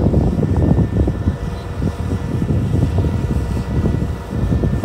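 Tracked combine harvester's diesel engine running as the machine drives along: a dense low rumble with a faint steady whine over it.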